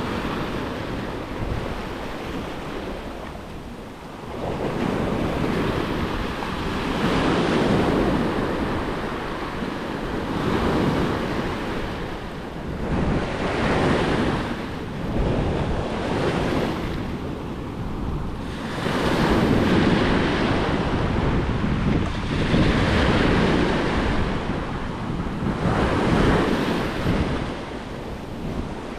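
Sea surf: small waves breaking close by and washing in over a flat rock shelf, each surge swelling and falling away every few seconds.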